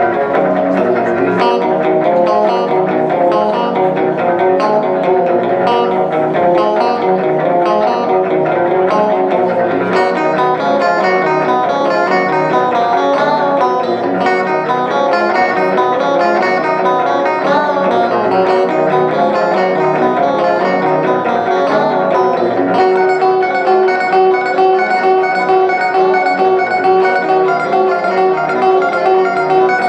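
Live instrumental music led by a plucked guitar, with dense, steady playing; the texture changes about ten seconds in and again near the end.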